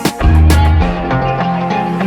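Background music: a rock track with guitar and a steady beat.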